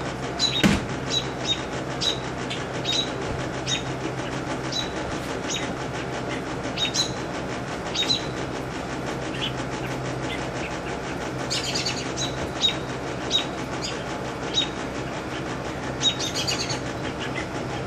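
Parent songbirds giving repeated short, sharp alarm chirps, irregularly spaced and bunching up twice near the end, as a rat snake seizes their nestling, over a steady low hum.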